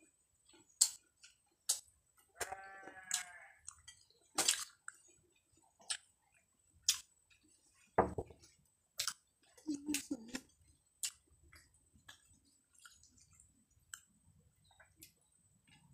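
Eating sounds: sharp clicks, about one a second, of hard jengkol shells handled on the plate and of chewing. About two and a half seconds in, a brief quavering bleat is heard.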